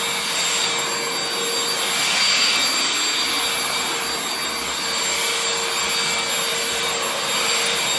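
Shark CH701 Cyclone Pet cordless handheld vacuum running steadily, a high motor whine over a rush of suction air.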